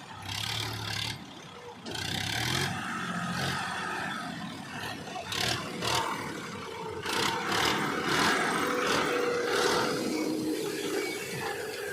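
Engine of heavy machinery running unevenly, with scraping and clattering over it.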